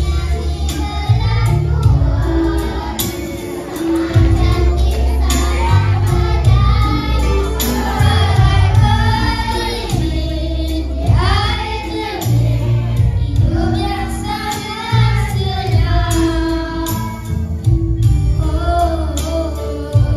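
A group of children singing together into microphones over recorded backing music, with a bass line that changes note about once a second.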